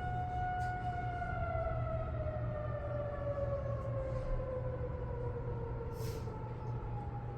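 Federal Signal 2001-230 electromechanical warning siren holding a steady tone, then winding down, its pitch falling slowly from about a second in, as it does after being switched off at the end of the test. A steady low rumble runs underneath.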